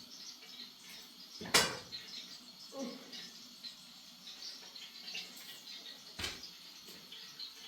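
Two sharp knocks over faint room noise: a loud one about a second and a half in and a softer one about six seconds in.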